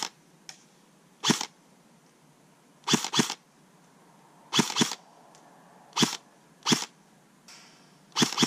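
King Arms Black Rain Ordnance electric airsoft rifle firing single shots, each a sharp crack. There are about nine in all, some in quick pairs.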